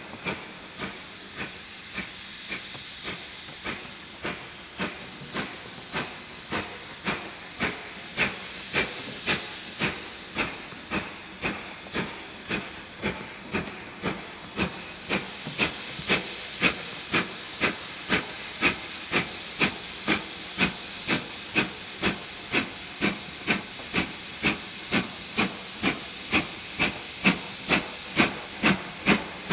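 GWR Modified Hall No. 6989 'Wightwick Hall', a two-cylinder 4-6-0 steam locomotive, working a train at low speed: steady exhaust beats at about two a second over a hiss of steam. The beats grow louder past the middle as the engine comes closer.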